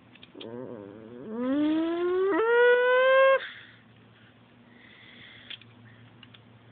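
A child's voice makes a mouth sound effect of a car speeding up into turbo mode. It wavers at first, then climbs steadily in pitch for about two seconds and cuts off suddenly. Faint clicks follow.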